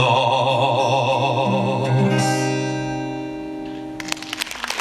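A male voice holds the last sung note of a song with vibrato over acoustic guitar. About two seconds in a final guitar chord is struck and rings out, and applause starts near the end.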